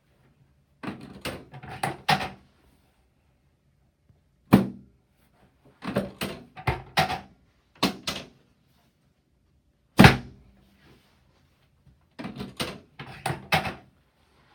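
Chiropractic adjusting table knocking and clacking during a low-back adjustment: bursts of quick sharp knocks with two single heavy thunks, one a few seconds in and one near the middle.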